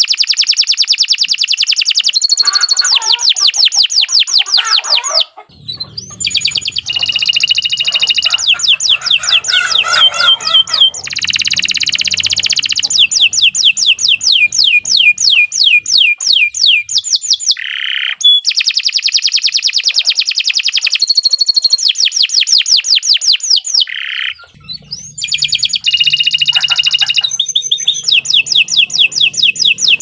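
Domestic canary singing a long, unbroken song of rapid trills: runs of quick, evenly repeated down-slurred notes, several a second, switching to a new trill every second or two. It breaks off briefly twice, about five seconds in and again near twenty-five seconds.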